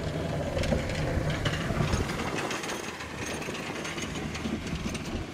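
Snow plow's steel blade scraping and grinding along the road as the truck passes, a harsh, continuous metallic rasp over the low sound of the truck's engine.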